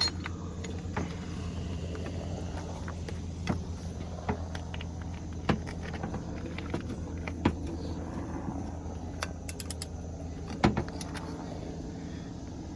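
Scattered sharp metallic clinks and knocks of hand tools, a 19 mm socket on a bar, working the axle bolts, over a steady low hum.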